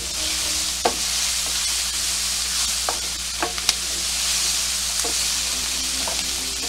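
Sliced onions and diced celery sizzling in a little oil in a hot skillet as they begin to sweat, stirred with a wooden spoon that knocks against the pan several times.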